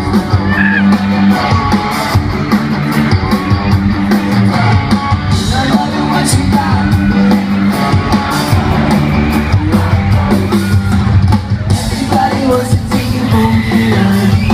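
Live pop-punk band playing a song: electric guitars, bass and drums with a sung lead vocal and a steady beat.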